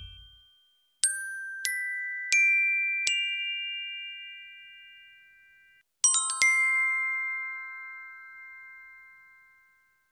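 Bell-like chime tones of a logo jingle: four high notes struck one after another, each ringing on, then a chord of several notes struck together about six seconds in, ringing out and slowly fading.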